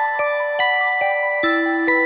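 Background music of bell-like struck notes, about two to three a second, each ringing on over the next, with a lower, longer note past the middle.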